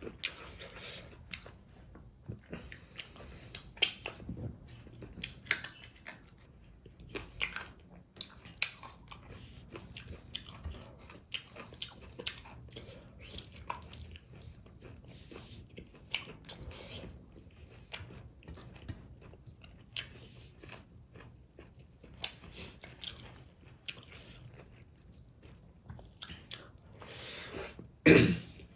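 Close-miked chewing and biting of fish-and-tomato curry with tree beans: irregular wet smacks and small crunches. One much louder burst comes near the end.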